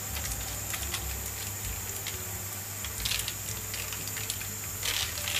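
Sesame seeds being sprinkled over food: a light, scattered patter, with two short louder rustles about three and five seconds in.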